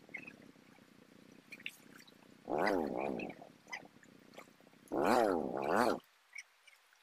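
Motorcycle engine running at idle, revved twice in short bursts about two and a half and five seconds in, its pitch swinging quickly up and down as the throttle is worked. The idle cuts out about a second before the end.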